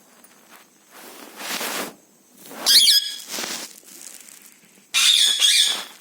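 Pet parrot squawking: a loud, harsh screech about halfway through and another near the end, with breathy rasping noises in between.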